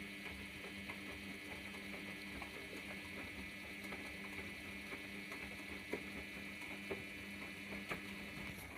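Washing machine running with a steady hum, with scattered light clicks and taps over it. The hum drops away near the end.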